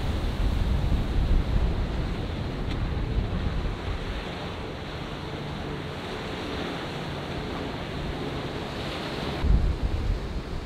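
Ocean surf washing and breaking, with wind buffeting the microphone as a low rumble. The rumble is heavier at the start, eases through the middle and comes back near the end.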